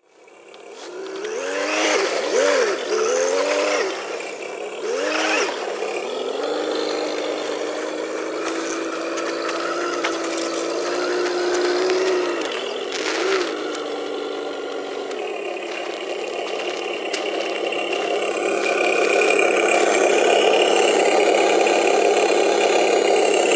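On-board engine sound module of a 1:10 Tamiya Unimog RC truck playing a simulated truck engine: several rev-ups and drops in the first few seconds, then a steady held engine note while driving, changing about two-thirds of the way through to a steadier, rougher running sound.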